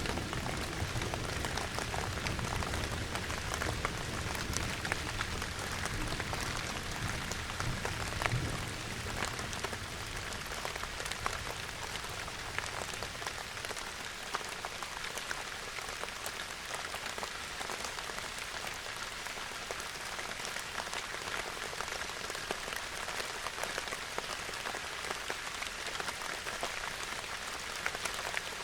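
Gentle rain falling steadily, with a fine patter of individual drops. A low rumble of distant thunder fades out about halfway through.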